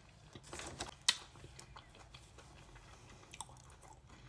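Faint close-up chewing of a cube of Dubai chocolate: a short crackle and a sharp crunchy click about a second in, then a few faint ticks.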